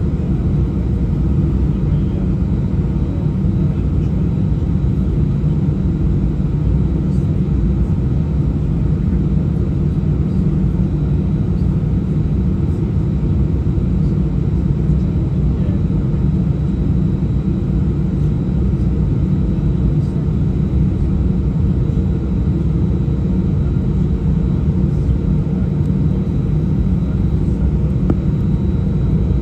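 Steady low rumble inside the cabin of a British Airways Airbus A319 during taxi, its jet engines at idle thrust, with a faint steady whine above it.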